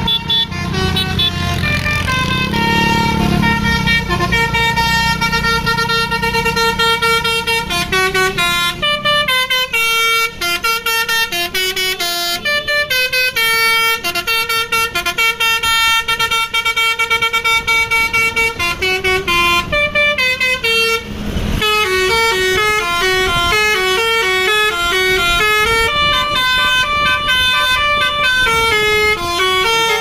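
Telolet basuri multi-tone musical air horn on a tour bus playing a long, fast melody of short notes that step up and down in pitch. The bus engine runs underneath in the first few seconds, and a brief rush of noise breaks the tune about two-thirds of the way through.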